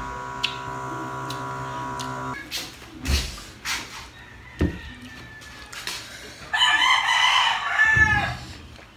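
A rooster crowing once, about seven seconds in: one long wavering call of under two seconds. Before it, a few dull knocks of drinking glasses set down on a table.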